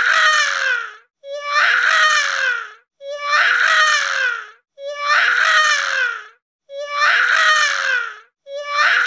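A wailing, crying voice like an infant's, repeated over and over at an even pace of about one cry every second and three-quarters. Each cry is a short lead-in note, a brief break, then a longer wail that falls in pitch.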